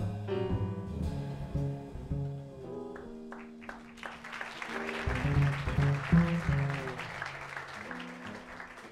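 Jazz piano and upright double bass playing. About four seconds in, audience applause rises and carries on over the bass line, thinning near the end.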